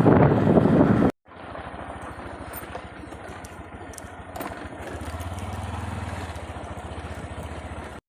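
A small engine running steadily at a low pulse, swelling a little about five seconds in. It follows a second of loud rushing noise that cuts off abruptly.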